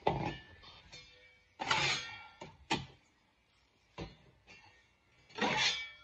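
Self-adhesive fiberglass mesh drywall tape being pulled off its roll and pressed onto the wall, heard as about five short ripping, rustling bursts.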